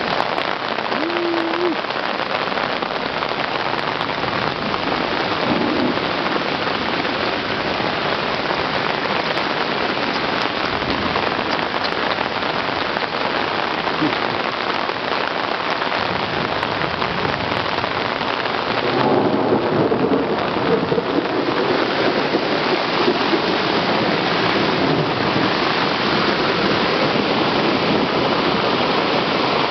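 Torrential rain pouring steadily onto flooded ground, a dense, even hiss of downpour.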